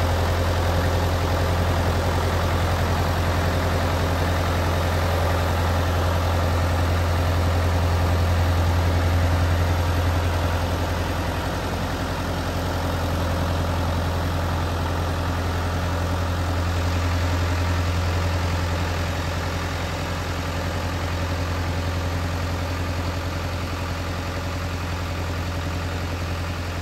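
Ford 5000 tractor engine idling steadily, a low even hum with no change in speed.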